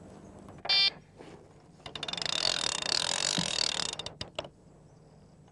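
An electronic carp bite alarm gives one short, loud beep. Then a spinning reel's ratchet clicks rapidly for about two seconds, followed by a few single clicks.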